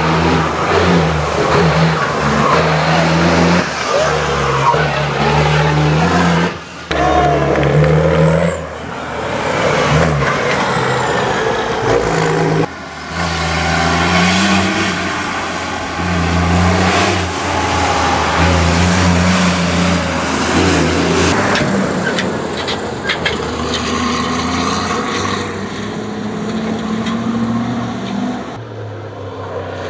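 Cross-country rally cars' engines running hard, revving up and dropping back in steps through gear changes. The sound breaks off abruptly a few times as one car's clip gives way to another's.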